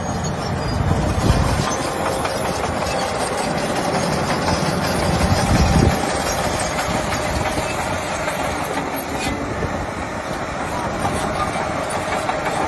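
Diesel engines of heavy earthmoving machinery running steadily, with two louder low swells about a second in and again around five to six seconds in.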